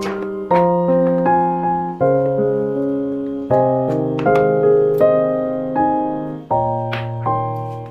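Background music: a piano playing gentle chords, each struck and left to fade before the next.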